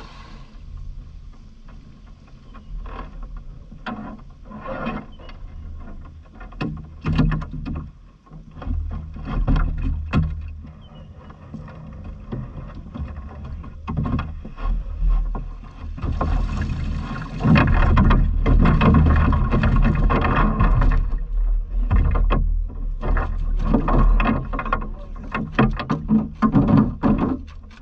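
Water splashing and dripping as a cast net is hauled in over the side of a small boat and lifted out of the water, with a louder stretch of water pouring and splashing about two-thirds of the way through. A low wind rumble on the microphone lies underneath.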